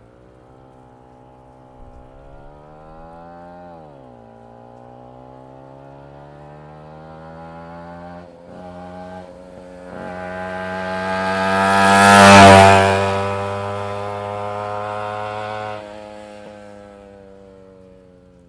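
Motorcycle passing by: the engine note climbs and then drops sharply about four seconds in, breaks off briefly twice around eight to nine seconds, and grows steadily louder to a peak about twelve seconds in as the bike goes past, then fades away.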